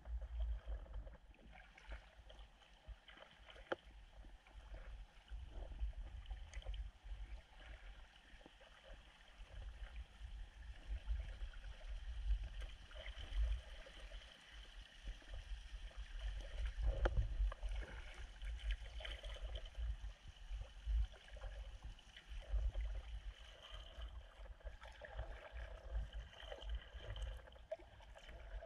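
Kayak paddling: water gurgling and dripping off the paddle blade and lapping at an inflatable kayak's hull, over an uneven low rumble, louder a little past the middle.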